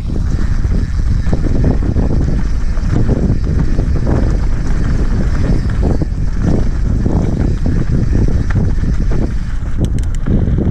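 Heavy wind rumbling on a body-mounted camera's microphone during a fast mountain-bike ride down a rough dirt trail, with the tyres and frame rattling and knocking over the bumps.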